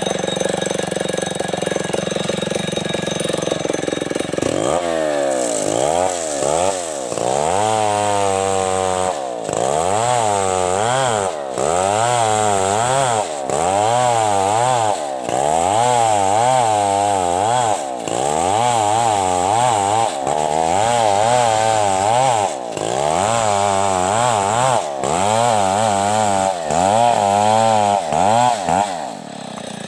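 Large STIHL two-stroke chainsaw ripping a coconut log lengthwise into planks. The engine runs steadily for the first few seconds, then its pitch rises and falls about once a second as the chain works through the cut, and it eases off near the end.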